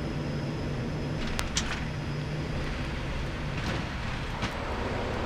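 Cockpit noise of a turboprop airliner at touchdown and on the landing roll: a steady low drone of engines and propellers with a rush of air, and a few faint clicks about a second and a half in.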